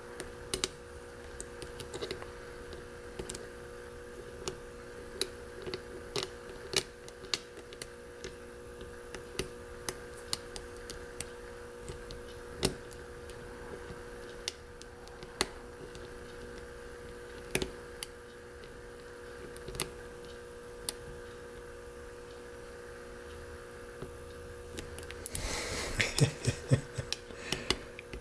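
A lock pick and tension wrench working the pins inside a FarmerFreak 6-pin mortise cylinder: scattered light metallic clicks and scrapes, with a denser run of rattling clicks about 25 seconds in. A faint steady hum sits underneath.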